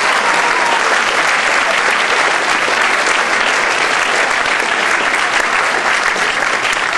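Audience applauding, a dense, steady clapping at the end of a speech.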